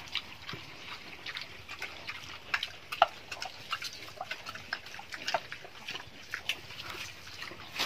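Wild boar pigs feeding at a trough on chopped banana stem: irregular crunching, smacking and snuffling, with the sharpest snap about three seconds in.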